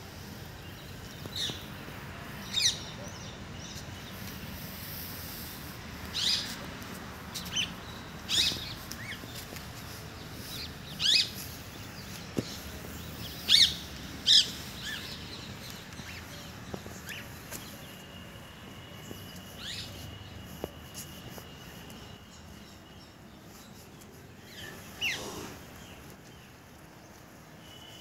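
Birds chirping in short, separate calls over a faint background hiss, with a thin steady high whistle for a few seconds about two-thirds of the way in.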